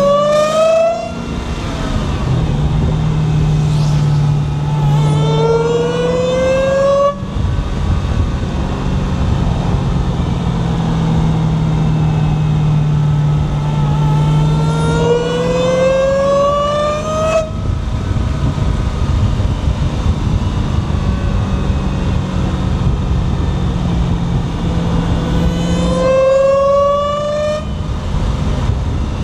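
Dodge Charger Hellcat's supercharged 6.2-litre V8 under acceleration, heard from the engine bay. The supercharger whine climbs in pitch with engine speed and cuts off sharply, four times. Between the climbs the engine drones steadily under a rush of wind noise.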